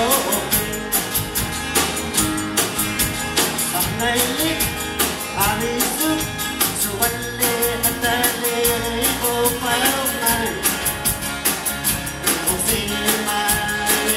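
A live rock band playing: a man singing over strummed acoustic guitar, electric guitar and bass, with a drum kit keeping a steady beat.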